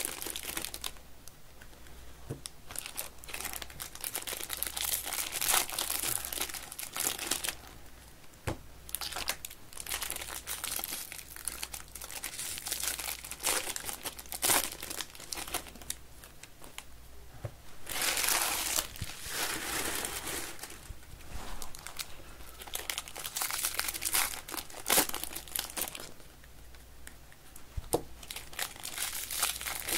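Foil wrappers of Topps baseball card packs crinkling in irregular bursts as the packs are handled and torn open, loudest about 18 seconds in.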